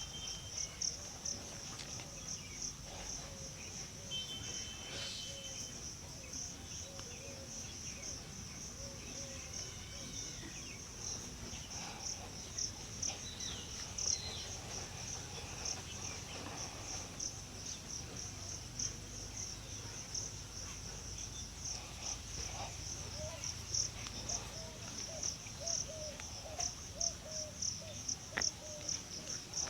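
Crickets chirping in a steady, fast-pulsing, high-pitched chorus, with a few faint scattered taps.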